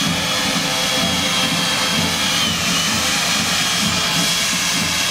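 Stihl chainsaw running at high speed while carving a block of ice, a steady high whine that sags briefly as the chain bites, about two and a half seconds in and again near the end.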